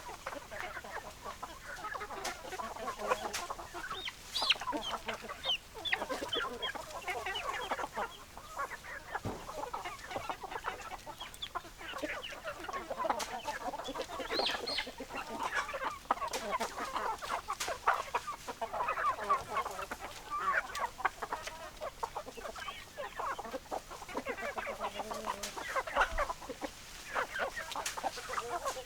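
A flock of chickens, mostly hens clucking, with many short overlapping calls and no break.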